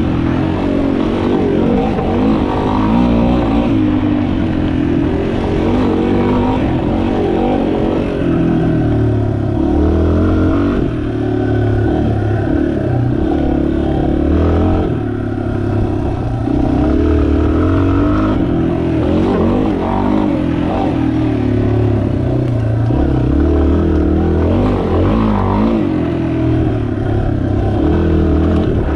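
2019 Yamaha XT250's air-cooled 250 cc single-cylinder four-stroke engine running under way on a dirt trail, its pitch rising and falling again and again as the throttle is opened and eased off.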